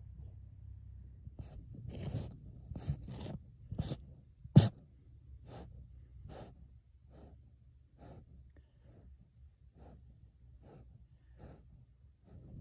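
A marmot inside its burrow shoving earth and stones into the entrance to seal it for hibernation: a run of short scrapes and rustles, densest in the first few seconds, with one sharp knock about four and a half seconds in, then fainter scratches about a second apart.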